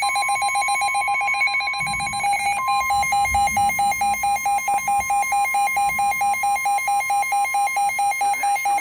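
NOAA weather radio sounding its warning alert: a steady high tone over a fast, even pulsing beep, the alarm that comes before a severe thunderstorm warning message.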